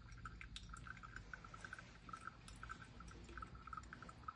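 Very faint, gentle stream of hot water from a gooseneck kettle poured into the centre of a V60 dripper onto coarse-ground coffee, with light irregular ticks.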